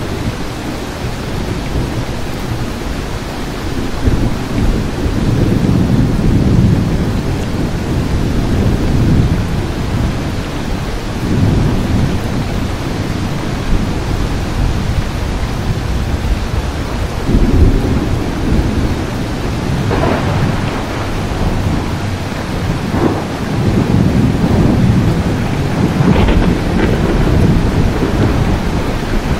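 Steady heavy rain with thunder rumbling again and again in long low rolls. A few sharper cracks of thunder come in the second half.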